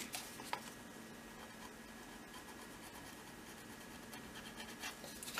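Faint scratching of sandpaper rubbed by hand along the edge of a small plastic model-kit part, with a few small ticks.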